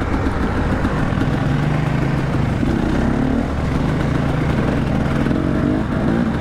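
Off-road vehicle engine running under way, its pitch rising and falling with the throttle, over rumble and wind on the microphone.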